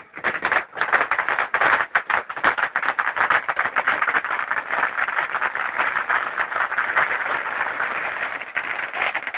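A firework spraying sparks with a dense, rapid crackle that starts abruptly and keeps going.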